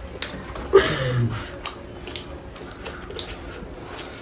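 A short low vocal murmur from a person about a second in, followed by faint scattered clicks and a quiet room background.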